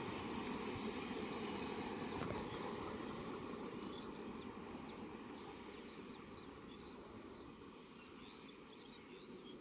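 Running noise of a departing express passenger train on the rails, fading steadily as it moves away. A few bird chirps come through in the second half.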